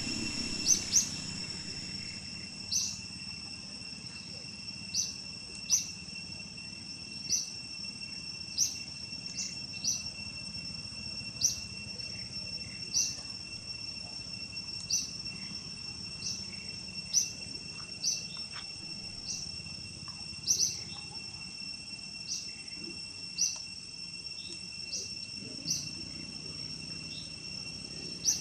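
Steady high-pitched insect drone, with a short high chirp repeating about every second to second and a half; the chirps are the loudest sound.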